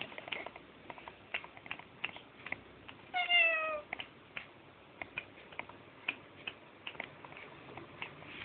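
A domestic cat meows once, a single call lasting under a second that falls slightly in pitch, about three seconds in. Light, irregular clicks and taps run around it.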